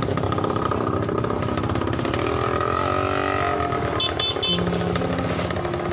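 A small engine running steadily, with three short high beeps about four seconds in.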